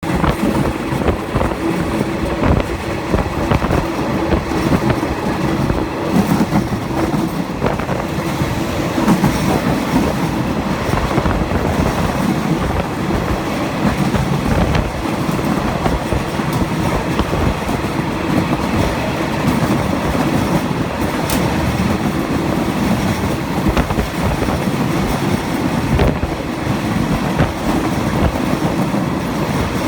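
Train running past: a steady loud rumble of wheels on the rails, with scattered clacks and knocks from the wheels crossing rail joints.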